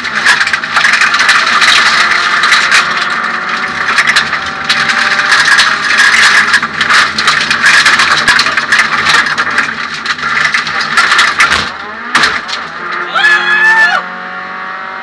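Suzuki Swift 1600 N2 rally car heard from inside the cabin at speed: its 1.6-litre four-cylinder engine running hard under loud road noise and dense rattling and clatter. Near the end a brief wavering high-pitched sound comes, and then the noise drops to a lower level.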